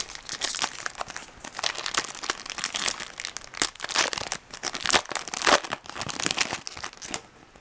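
Crinkling of a Topps Chrome trading-card pack's foil wrapper as it is torn open and handled, a dense irregular crackle that stops suddenly near the end.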